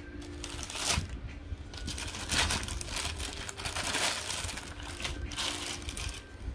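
Plastic poly mailer crinkling and tearing as hands rip it open and pull a box out, in several loud bursts of rustling.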